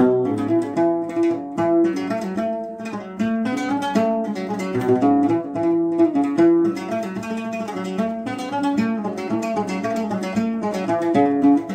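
Oud played solo: a quick melodic run of plucked notes forming the instrumental interlude between sung verses of a Sudanese Haqiba song.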